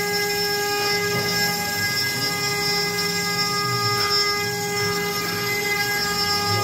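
ARWING V4 CNC router spindle milling an aluminium composite panel: a steady whine made of several tones held together over a rougher cutting noise.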